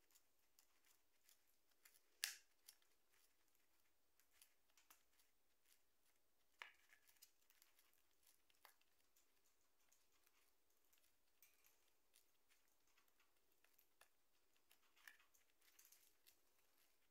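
Rosy-faced lovebird biting and shredding a cardboard toilet-paper tube with its beak: faint, irregular snipping and tearing clicks, the sharpest a little over two seconds in.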